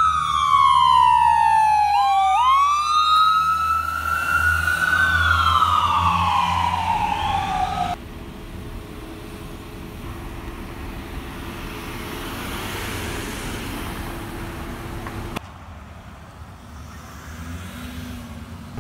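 Emergency vehicle siren wailing, its pitch sweeping slowly down and up over a low engine rumble, with a second sweeping tone overlapping it. About eight seconds in it cuts off, leaving quieter steady traffic and engine noise with a low hum.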